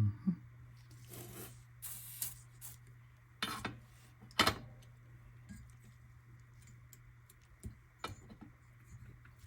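Hands handling small parts and tools on a workbench during a soldering job: a few short rubbing and scraping sounds and light clicks over a steady low hum.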